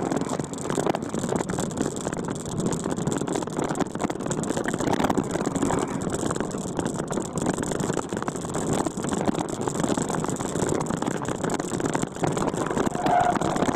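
Off-road vehicle driving over a bumpy dirt trail: a steady engine sound with constant knocks and rattles from the rough ground.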